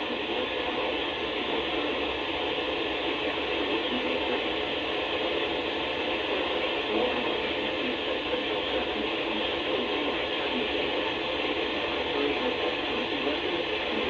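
Weather radio receiver hissing with steady static from a weak signal on NOAA Weather Radio station KHB42.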